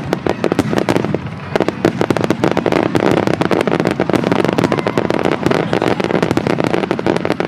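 Fireworks finale: a dense, continuous barrage of aerial shell bursts and crackling, many bangs a second, overlapping without a break.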